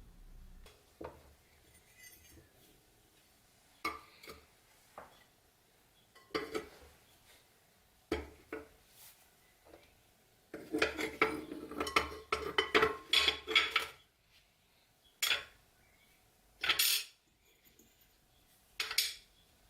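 Small metal parts and tools clinking and knocking against each other as a rusty padlock is worked on. Scattered single clinks, a quick run of rattling clinks about halfway through, then a few sharp single clinks.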